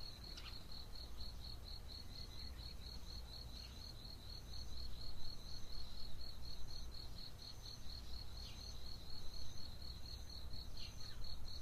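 Dawn chorus of insects: a cricket-like insect chirping in a high, even, rapid pulse without pause, with a few short falling bird calls now and then over a low background rumble.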